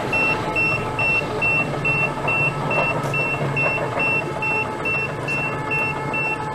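Belloli KUBO 1800 rail tractor moving off with a loaded flatcar, sounding a high warning beep that repeats evenly a little over twice a second over the low hum of its drive.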